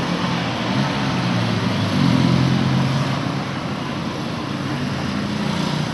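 Street traffic noise: a steady haze of road noise with the low hum of a motor vehicle engine running nearby.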